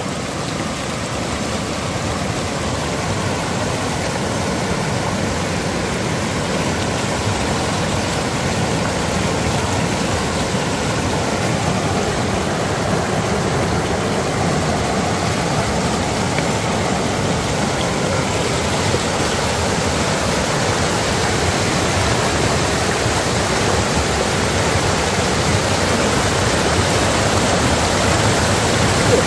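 Rushing river water: a steady, even hiss that grows slightly louder.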